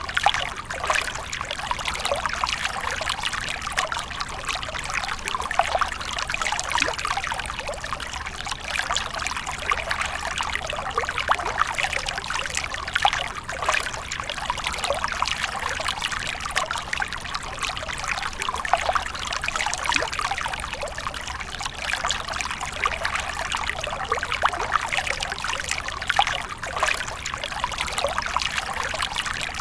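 Water running and splashing steadily, a continuous trickle full of small splashes with no break.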